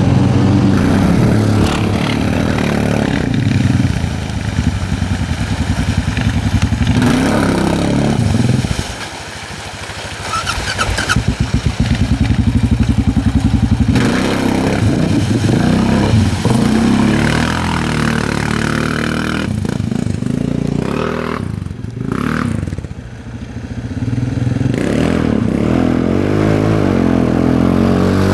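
Single-cylinder four-stroke ATV engines revving hard through deep mud and water, the engine note rising and falling with the throttle. A Honda Rincon 680 churns through the mud hole, and a Suzuki KingQuad 500 ploughs through the water near the end.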